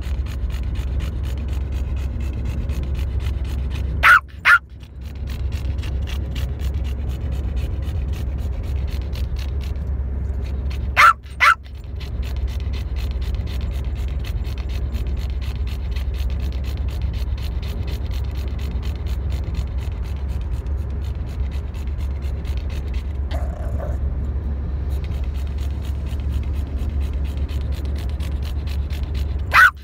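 Steady low rumble of a moving car heard from inside the cabin, broken three times by a quick pair of short, sharp, loud sounds: about four seconds in, about eleven seconds in, and at the very end.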